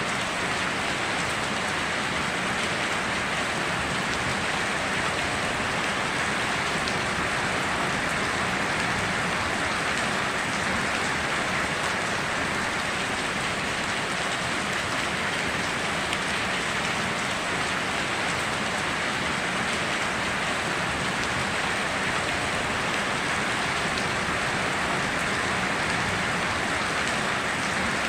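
Steady heavy rain falling on surfaces, an even hiss without a break or any thunder.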